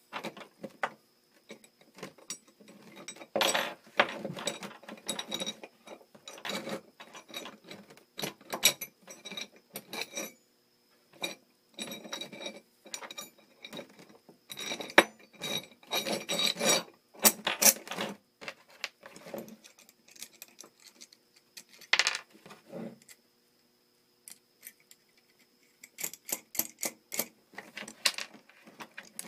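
Long steel bolts, nuts and washers clinking and scraping against flat steel bars as they are handled and taken apart, in irregular bursts of metal clatter with a few sharper knocks.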